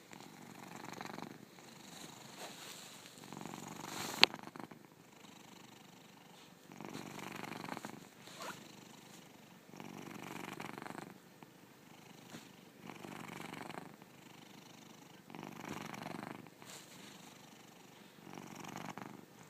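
A sleeping domestic cat snoring, a rasping sound on each breath, about every two to three seconds. A sharp click about four seconds in.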